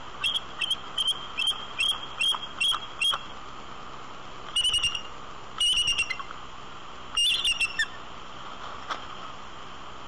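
Bald eagle calling: a run of about eight high, thin piping notes at roughly three a second, then three shorter clusters of chittering notes, over a steady background hiss.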